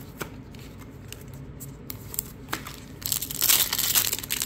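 A few light clicks of trading cards being handled, then, about three seconds in, the silver foil wrapper of a Topps Stadium Club Chrome baseball card pack loudly crinkling and tearing as it is opened.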